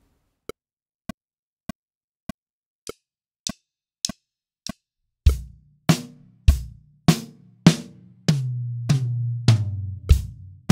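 A metronome clicks eight times at 100 beats per minute as a count-in. Then an acoustic drum kit comes in with a quarter-note groove on hi-hat, bass drum and snare, and a fill on the ringing toms and snare around the eight-second mark before the groove resumes.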